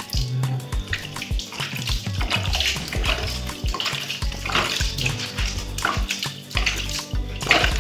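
Water scooped by hand from a plastic bucket and splashed over a wet Shih Tzu's coat during a bath, in a run of irregular splashes with the loudest near the end. Background music plays throughout.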